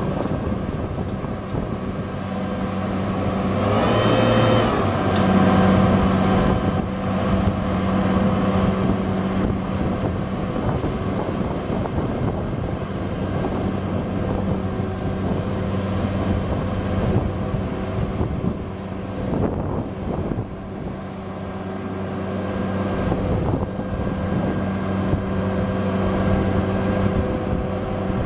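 Caterpillar 7.2L inline-six diesel engine of a Sterling L7500 truck running with a steady note. About four seconds in there is a brief louder swell with a short whine, and after it the engine note is stronger.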